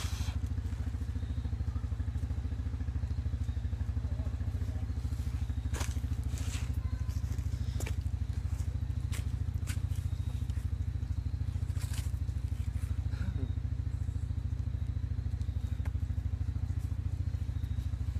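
ATV engine idling steadily, a low, evenly pulsing sound, with a few scattered sharp clicks.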